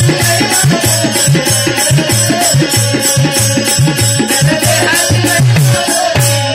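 Bhajan music: a hand drum plays a quick rhythm of deep strokes that drop in pitch, small hand cymbals clash on a steady fast beat, and a wavering melody line runs above them.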